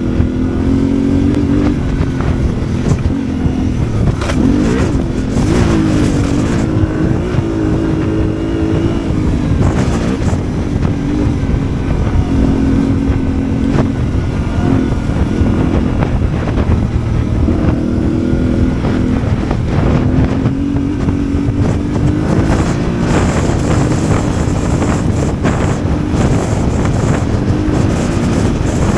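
Yamaha Ténéré 700 World Raid's parallel-twin engine running off-road, its revs rising and falling again and again with the throttle over a heavy low rumble. Short bursts of noise, such as wind on the microphone or knocks from the rough ground, come every few seconds.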